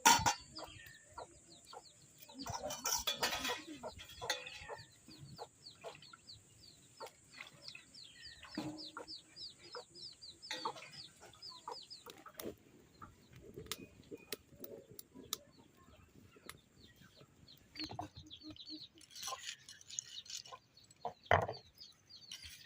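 Chickens clucking, with a run of short high falling chirps about three a second through the middle and a steady high hum that stops about halfway.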